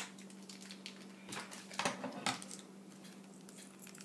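Small plastic Lego pieces being handled, giving a few separate light clicks and clatters.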